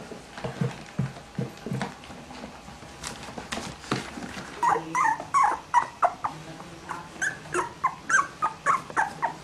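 Three-week-old Cavalier King Charles Spaniel puppies whimpering and squeaking: after a few seconds of soft shuffling bumps, a rapid run of short, high cries starts about halfway through, several a second.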